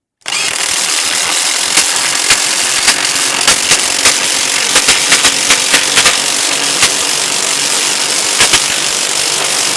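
Cordless impact wrench hammering continuously as it drives a 6-inch, 3/8 hex lag bolt, starting about a quarter second in with a dense rattle and sharp ticks throughout.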